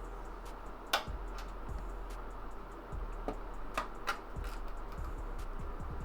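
Scattered sharp clicks and light knocks of a graphics card being handled and worked into a PC case, over a low steady hum. The clearest click comes about a second in, then a cluster of three in the middle.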